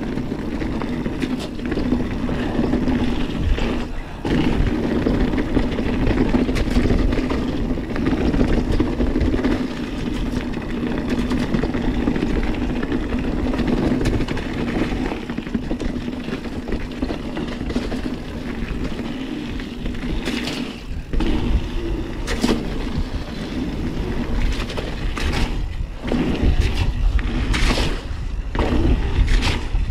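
Santa Cruz Hightower 29er mountain bike descending a rough, wet trail at speed: continuous tyre and wind noise on the handlebar camera, with the bike rattling and knocking over the ground. The knocks come thicker in the second half, several sharp hits close together.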